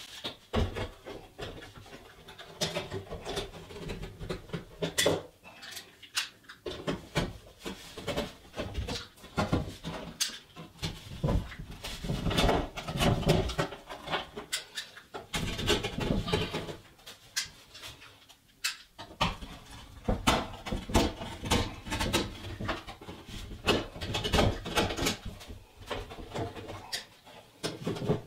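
Irregular scraping, clicking and cracking as the damaged skin of a hollow-core masonite door is cut and pried away around a hole.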